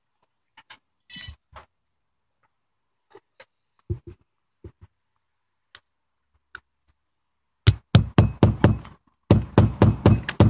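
Claw hammer driving a ring-shank aluminum nail through a metal hold-down clip into the roof deck: two runs of quick, sharp blows about five a second, starting about three quarters of the way in, with a short gap between them. Before that, only a few faint clicks as the clip and nail are set in place.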